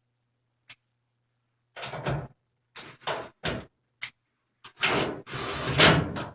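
Washing machine parts being handled during reassembly. There are a few short scrapes and knocks, then a longer, louder scraping slide near the end.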